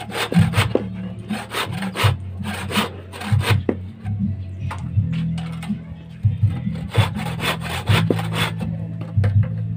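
A long thin hand blade sawing and rasping across a small wooden block in bursts of quick back-and-forth strokes, with short pauses between the bursts. A low steady hum runs underneath.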